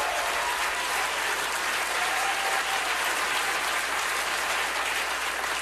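Audience applauding steadily, with a few faint voices mixed in.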